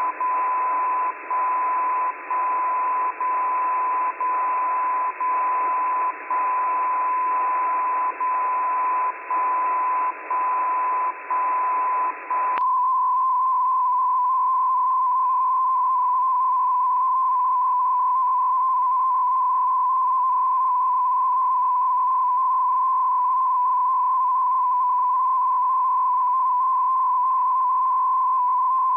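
SDR receiver audio of a received low-frequency radio carrier: a steady beat tone in band-limited hiss, the tone dropping out briefly about once a second with one beat skipped. About twelve seconds in there is a click, the hiss falls away, and the tone carries on unbroken.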